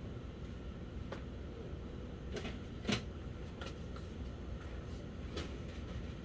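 A few sharp plastic clicks and knocks as ink cartridges are handled and pushed into the printhead carriage of an HP OfficeJet Pro 8710, the loudest about three seconds in, over a steady low hum.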